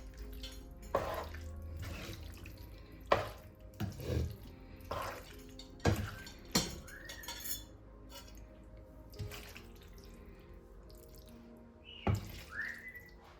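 Kitchen work at a sink: a tap runs while dishes and utensils knock and clink in a string of short, sharp hits.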